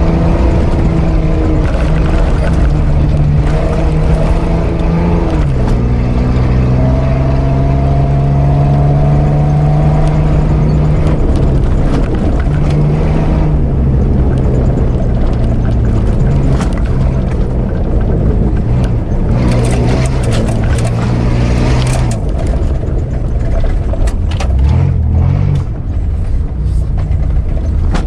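Mitsubishi Pajero's 3.0-litre V6 engine pulling the 4x4 along a dirt track. Its pitch drops sharply about five seconds in, then climbs slowly again. A cluster of knocks and rattles comes about two-thirds of the way through.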